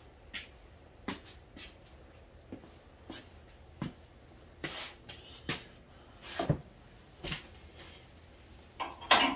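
Hand file working a protruding burr on a steel truck frame: short, irregular scraping strokes and knocks, roughly one every half second to a second. Just before the end a louder, denser sound starts.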